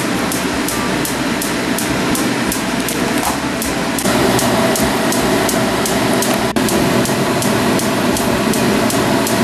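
Hot oil sizzling and bubbling around sesame-coated glutinous rice balls and rings as they deep-fry in a pan. It gets louder about four seconds in, over a faint regular ticking of about three a second.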